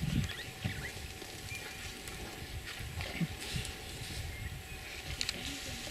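African elephants drinking from a swimming pool: an elephant draws water up its trunk and empties it into its mouth, with irregular low sounds from the animals.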